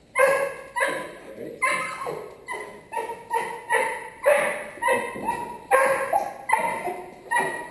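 A 17-week-old puppy barking over and over in quick succession, about two high-pitched barks a second, excited and in drive during rag (bite-work) training.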